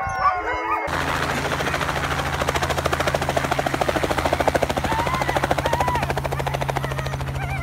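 Light helicopter running on the ground with its rotor turning: a steady low engine hum under a rapid, even beat of the rotor blades.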